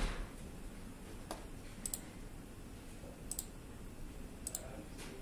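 A handful of short, sharp clicks from operating a laptop, three of them quick double clicks, over faint room tone.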